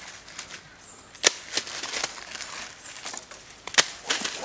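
Twigs and branches snapping and rustling as a person climbs and pulls on a thin tree, with irregular cracks and a sharp snap about a second in and another near the end.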